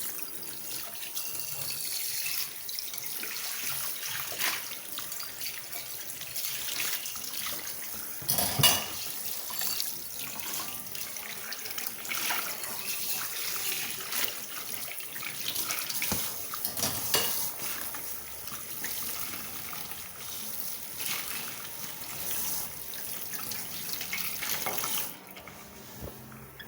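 Kitchen tap running into the sink while dishes are washed, with occasional knocks of dishes and the water stopping near the end.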